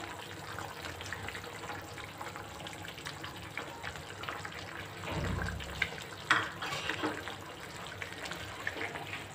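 Fish curry simmering in a pan, with steady bubbling and crackling, while a silicone spatula stirs through it with soft scrapes and clicks. A brief low rumble about five seconds in.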